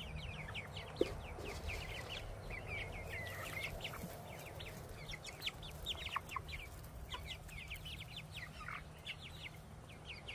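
A flock of young backyard pullets calling all at once: many short, high, falling peeps and cheeps in quick overlapping runs, with a steady low hum underneath.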